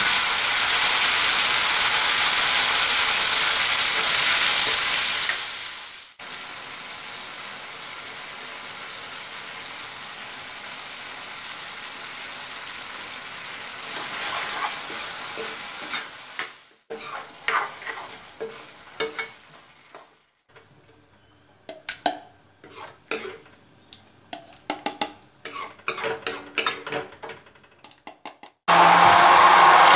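Chopped tomatoes sizzling steadily in a hot metal wok, loud at first and quieter after about six seconds. From about halfway a metal spoon stirs and scrapes the wok in irregular clicks and knocks, and near the end an immersion hand blender starts up with a steady whirr.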